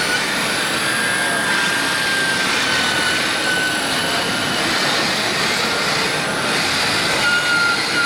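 Whine of a large 1/8-scale radio-controlled model's electric motor, a steady high tone that drifts slightly in pitch, over a constant noisy background.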